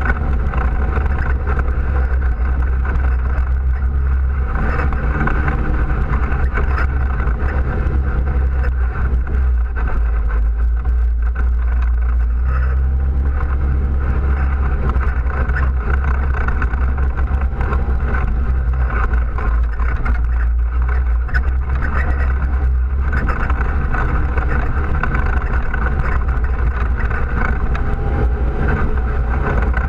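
ATV engine running steadily while the machine rides a rough dirt trail, picked up by a camera mounted on the ATV itself, with a deep, constant drone and some rattle.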